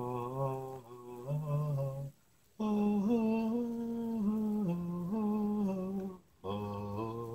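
A man humming a slow tune of long held notes that step up and down in pitch, pausing briefly for breath about two seconds in and again near the end.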